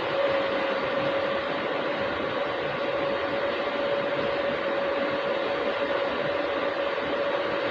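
A machine running steadily: an even hiss with a constant hum that doesn't change.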